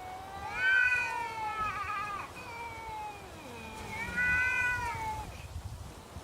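Cats in a standoff caterwauling at each other, the territorial yowling that comes before a fight. Two long, wavering, drawn-out yowls, the first lasting about two seconds and the second starting about four seconds in. Between them a lower moan slides down in pitch.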